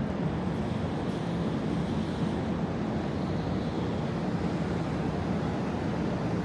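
Steady low rumble of city street traffic: an even wash of engine and road noise with no single event standing out.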